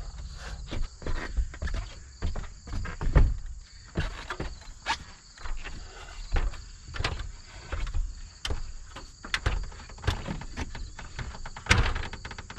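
Irregular knocks and clunks of boots on ladder rungs and a wooden ladder bumping against the ladder and wall as it is carried up, over the steady high chirring of crickets.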